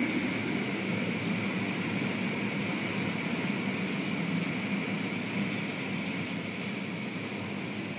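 Automatic car wash running: cloth strips and a spinning brush scrubbing against the car, with a steady machine hum, heard from inside the car's cabin. It grows slowly quieter.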